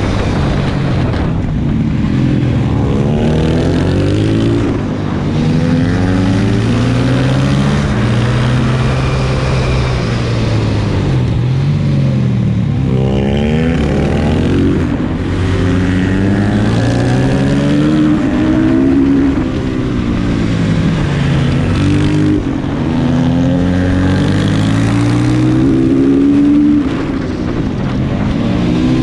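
Supermoto motorcycle engine heard from onboard the bike, the pitch climbing with throttle, dropping back at each upshift and falling off when slowing for the corners, again and again as it laps. Wind hiss on the microphone runs under the engine.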